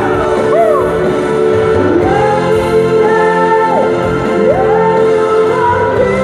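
A man singing into a microphone with a live band, holding notes and sliding between them, over sustained chords from an electric guitar.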